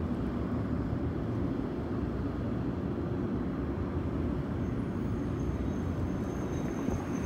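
Steady low background rumble with no distinct events, the kind of outdoor noise of distant traffic and wind. A faint thin high tone comes in about two-thirds of the way through.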